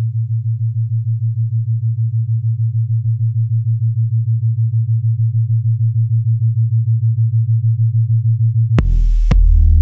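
Electronic music: a low synthesizer bass tone pulsing about six times a second and slowly swelling. About nine seconds in, a full beat drops in with heavy bass and sharp percussive hits.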